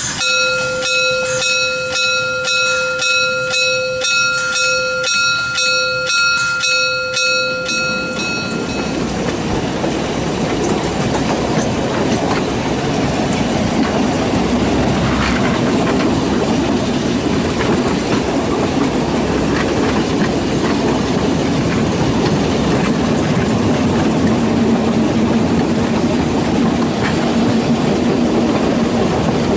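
Narrow-gauge steam locomotive 99 731 under way: regular exhaust beats about twice a second under a steady high tone for roughly the first eight seconds, then the loud, even rolling noise of the running gear and wheels on the track takes over.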